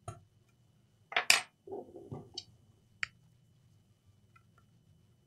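A few sharp clicks and scrapes of a metal craft-knife blade working at the rubbery adhesive strip along the edge of a laptop screen. The loudest pair of clicks comes about a second in, followed by softer scraping and a couple of single ticks.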